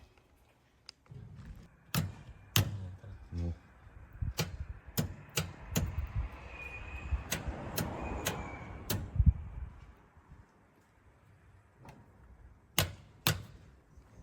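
Sharp clicks and knocks from the hydraulic shelf press and its controls being worked, about a dozen at uneven intervals, with a low machine rumble swelling between about four and nine seconds in.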